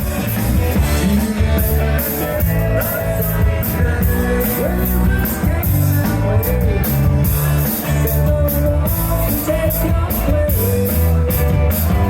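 A covers band playing rock live at loud volume: drum kit, bass and electric guitar with a singer's voice, heard close to the PA speakers.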